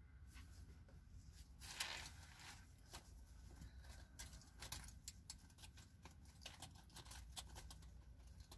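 Near silence inside a stationary car: a faint low steady hum, with scattered faint clicks and a short rustle about two seconds in.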